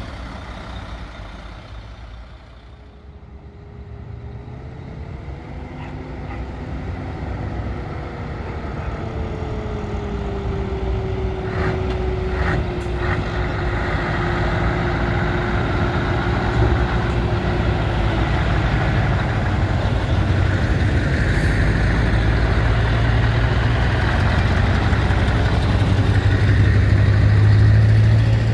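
Classic lorry's diesel engine running and drawing steadily closer, its low rumble growing louder toward the end. A steady whine above the engine slowly falls in pitch before fading out about two-thirds of the way through.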